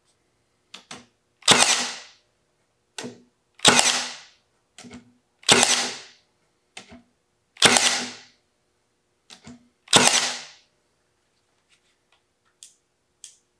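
Milwaukee M18 Fuel 18-gauge cordless brad nailer firing brads into hard, dry oak: five sharp shots about two seconds apart, each with a short fading ring and a faint click just before it. Faint small clicks near the end.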